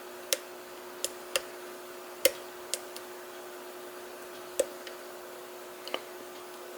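Mul-T-Lock pin-in-pin cylinder being picked with a flag pick under tension: about seven sharp, irregularly spaced metallic clicks as the pick lifts and sets the outer pins.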